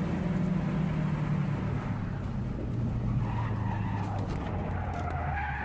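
A car's engine and road noise, recorded from inside the car, with the engine note falling. From about three seconds in, a tyre squeal sets in and grows louder as the tyres start to skid.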